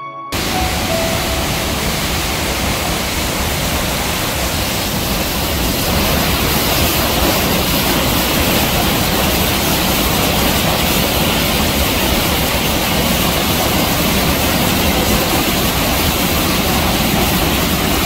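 Large waterfall in full flow: a loud, steady rush of water plunging onto rocks. A few notes of music cut off right at the start.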